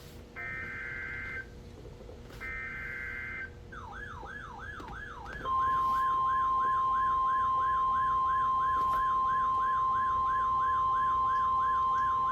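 Two one-second bursts of EAS SAME header data screech from a weather radio. Then an electronic siren starts yelping, about three sweeps a second, and a loud steady NOAA Weather Radio 1050 Hz warning alarm tone joins it, signalling a tornado warning.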